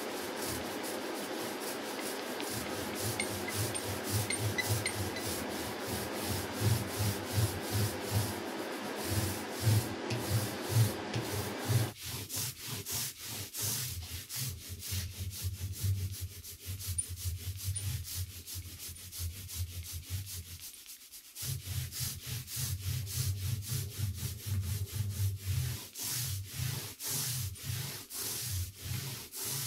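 Small foam roller rubbing back and forth over a plywood boat panel as it spreads epoxy: a quick, continuous run of rubbing strokes, with a short pause about two-thirds of the way through.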